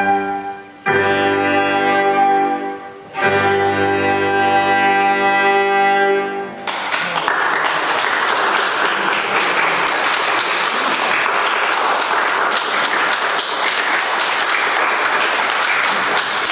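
A flute, violin and digital piano trio holds long final chords, with two brief breaks between them. The music stops about six and a half seconds in and audience applause takes over.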